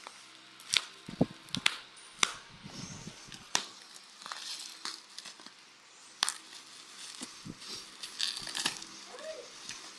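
Packaging being handled and opened, with plastic or paper crinkling and several sharp clicks and taps, the loudest about a second in and again about six seconds in.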